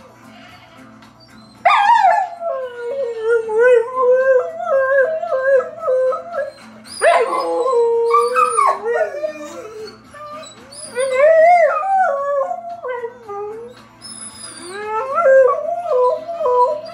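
A pit bull–husky mix dog howling along to a tune, in long wavering howls that swoop up to high notes, starting about two seconds in and running in several phrases with short breaks between them.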